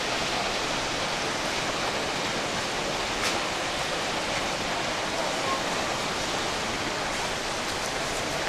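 Steady rushing of sea surf washing and breaking against the harbour walls and breakwater, with a faint tick about three seconds in.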